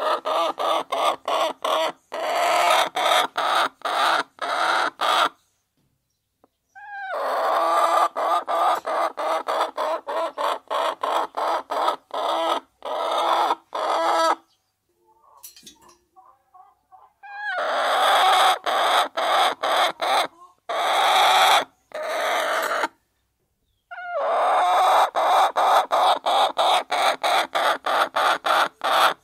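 A flock of hens clucking together while feeding, a dense run of quick repeated calls. It cuts out abruptly three times, going silent or nearly so for a second or more each time.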